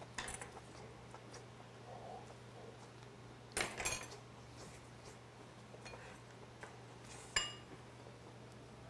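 Metal chopsticks and tongs clinking against dishes and the serving pot during a meal. There are a few light clicks at the start, a short clatter about three and a half seconds in, and a sharp ringing clink about seven seconds in.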